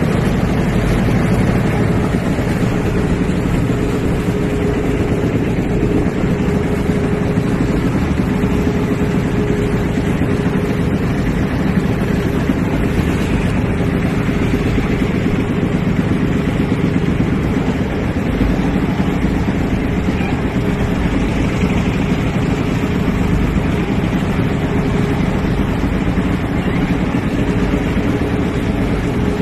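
A boat engine running steadily at one constant speed, with water churning in the fish tank.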